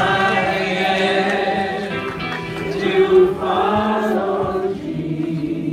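Gospel worship music: a group of voices singing together in long held notes.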